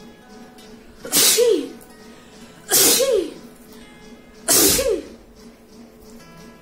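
A woman sneezing loudly three times in a row, about a second and a half apart, each sneeze ending in a cry that drops in pitch.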